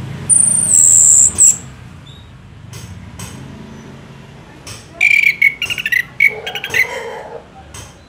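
Orange-headed thrush singing: a loud, high, thin whistle in the first second and a half, then a quick jumble of chattering notes about five to seven seconds in.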